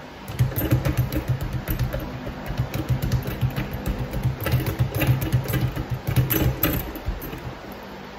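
Leather speed bag being punched against an Everlast wooden rebound platform: a rapid, even rattle of hits as the bag bounces off the board. It starts about half a second in and stops about a second before the end.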